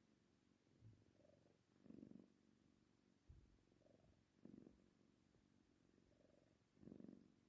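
A sleeping cat snoring softly, one snore per breath about every two and a half seconds, three in all; each breath starts with a faint higher note and ends in a louder low rasp.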